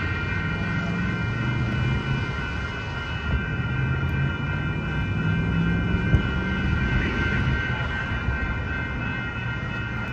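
Railroad crossing warning bells ringing steadily over a low engine rumble.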